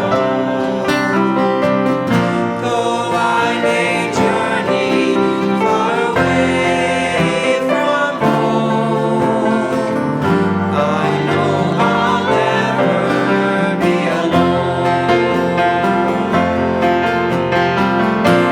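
Music: a song with plucked guitar accompaniment playing steadily.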